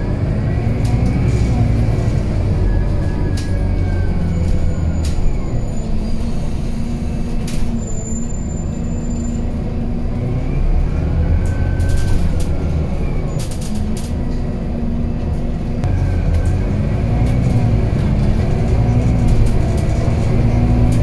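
Scania Citywide 12LF CNG city bus heard from inside the passenger cabin while driving: its Scania OC09 five-cylinder gas engine and ZF automatic gearbox run with a deep hum whose pitch rises and falls several times as the bus pulls away and changes speed. Occasional short clicks and rattles from the cabin fittings.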